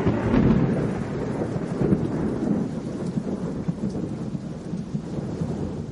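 Thunderstorm sound effect: rolling thunder with rain, loudest at the start in a deep rumble, then easing off gradually and fading out at the end.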